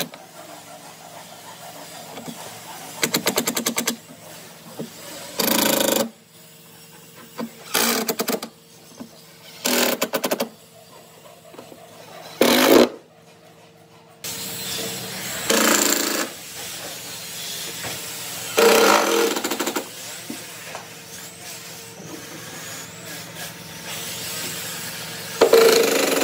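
Cordless impact driver driving screws into a hardwood frame: about eight short bursts of rapid hammering rattle a few seconds apart, over a steady background hum.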